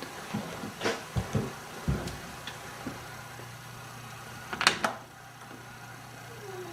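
A few knocks and thumps over a steady low hum, with a sharp double click about four and a half seconds in.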